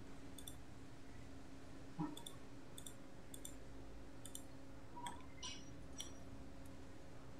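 Computer mouse button clicking, about eight faint single clicks spaced unevenly a half-second to a second apart, with a soft knock about two seconds in. A faint steady low hum sits underneath.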